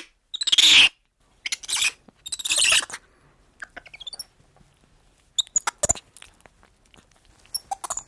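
Spider monkey calling: three loud screeches in the first three seconds, then quieter short chirps and clicks.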